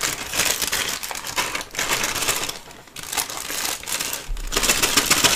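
A plastic bag crinkling while small resin miniature parts inside it click and rattle against each other as the bag is handled and opened. The ticking is busiest near the end.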